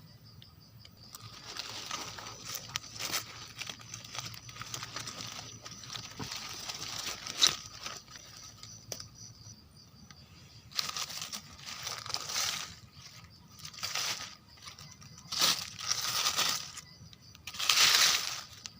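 Crinkling and rustling, fairly continuous for the first several seconds, then in separate bursts every second or two.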